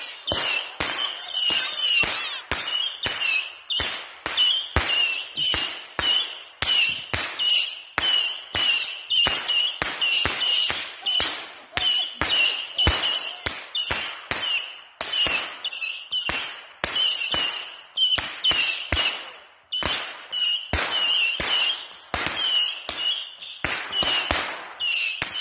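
Fireworks going off: an unbroken, irregular run of sharp pops and bangs, about three a second.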